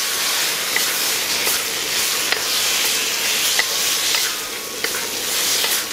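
Sliced tomatoes sizzling in hot oil in a wok as a wooden spatula stirs them. There is a steady frying hiss with light clicks of the spatula against the wok every second or so.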